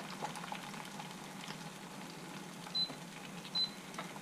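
Two short high beeps from an electric hob's touch controls, less than a second apart, over a faint steady hiss.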